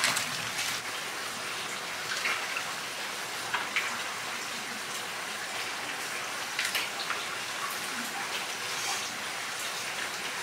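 Soaked bihon rice noodles being pulled apart and squeezed by hand in plastic basins of water: wet squelching and dripping, with small splashes here and there over a steady hiss.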